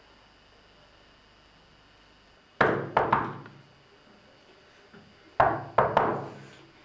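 Knocking on a panelled door: two rounds of three sharp knocks, about two and a half seconds apart, the first starting about two and a half seconds in, each knock ringing briefly in the room.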